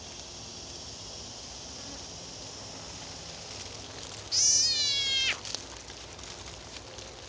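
Cuban tree frog giving a single distress scream while being eaten by a black racer snake: a high, wavering cry about a second long that starts suddenly about four seconds in.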